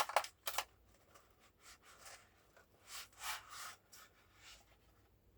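Faint handling noises: a few clicks at the start, then soft rubbing and rustling of packaging and containers being moved.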